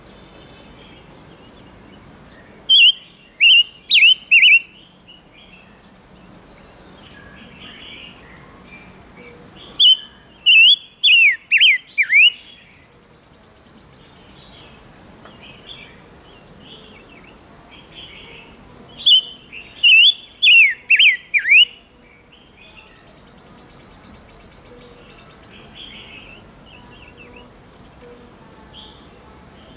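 Silver-eared mesia singing: three loud phrases of four to six quick, clear, down-slurred whistled notes, about seven to nine seconds apart. Softer scattered calls fill the gaps over a steady background hiss.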